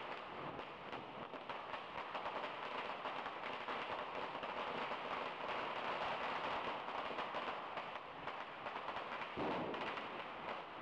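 Firecrackers going off in the road in a rapid, unbroken crackle of many small bangs.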